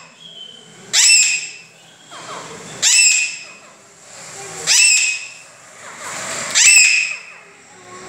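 Alexandrine parakeet giving loud, shrill calls, four of them about two seconds apart, each with a sharp upward sweep at its start.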